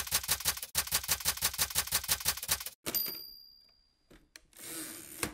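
Typewriter sound effect: rapid keystrokes, about eight a second, for nearly three seconds, then a single ringing bell ding. A short hiss follows near the end.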